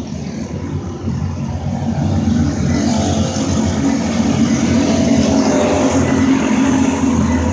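A pack of dirt-oval racing go-karts running at speed, their small engines droning together. The sound grows louder about two seconds in as the karts come past, then holds steady.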